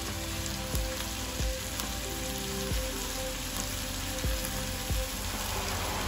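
Chicken and spiced sauce sizzling steadily in a frying pan, with a few soft knocks spread through.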